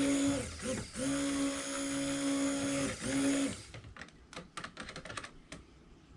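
Immersion stick blender running in a bucket of cold-process soap batter, a steady motor hum as it emulsifies the oils, lye solution, egg and cream. The motor briefly lets off and picks up again twice, then is switched off about three and a half seconds in, leaving a few light clicks and knocks.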